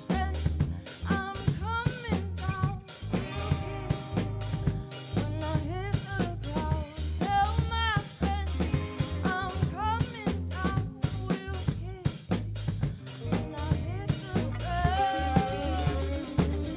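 Live rock band playing a song. A woman sings lead over electric guitars, bass guitar and a drum kit keeping a steady beat of snare and kick drum.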